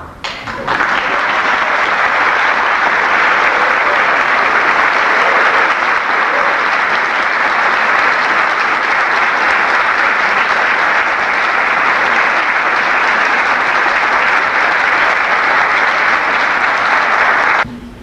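Audience applauding steadily after a choir song, cutting off abruptly near the end.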